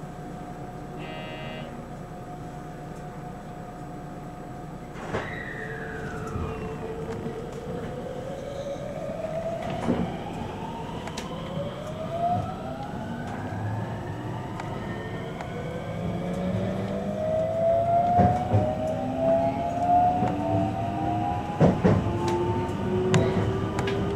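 521 series electric train pulling away from a station, heard from inside a motor car: the traction motors whine in several tones that climb steadily in pitch as the train gains speed. The running noise grows louder, with sharp knocks of the wheels over rail joints coming more often toward the end.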